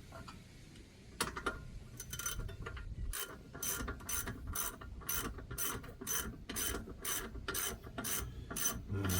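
Hand ratchet wrench being worked back and forth, its pawl clicking in a steady rhythm of about three strokes a second after a few irregular clicks.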